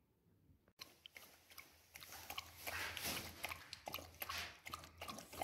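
A dog eating dry kibble from a bowl, with dense, irregular crunching and chewing clicks that start about a second in.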